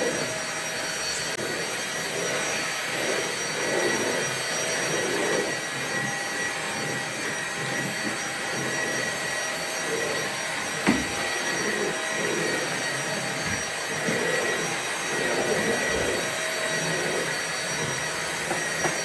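Vacuum cleaner running steadily: a motor whine with a high steady tone over the hiss of rushing air, its lower sound wavering a little. A single sharp knock about eleven seconds in.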